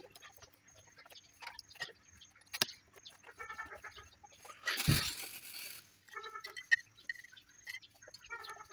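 Chickens clucking in short calls several times, with scattered small clicks and one loud rustling thump about five seconds in.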